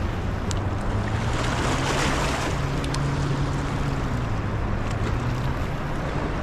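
Floodwater rushing and churning below a spillway, a steady wash of water noise. A low hum comes in near the start and fades out about five seconds in, with a couple of faint clicks.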